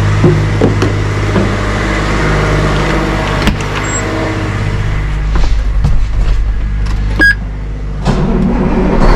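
Farm machine's engine running steadily while the machine is driven to its parking spot, with a few knocks and a brief high tone about seven seconds in.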